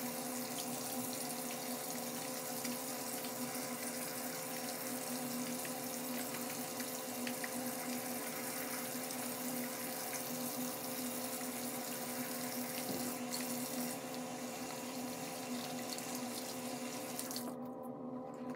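Bathroom sink faucet running steadily into the basin while hands are washed under it; the water stops near the end. A steady hum sits underneath.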